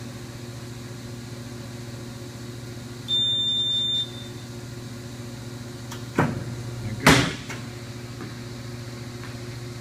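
Tennis-ball pitching machine running with a steady motor hum. About three seconds in it gives a high beep lasting about a second, and around six and seven seconds in come two sharp thumps, the second the loudest, as a ball is fired out.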